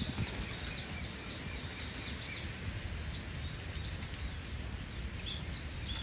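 Spice finches (scaly-breasted munias) giving short high chirps: a quick run of them in the first two and a half seconds, then single chirps about once a second. A steady low background rumble runs underneath.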